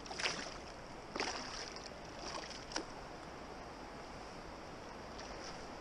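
Flowing river water, with three brief splashes in the first three seconds.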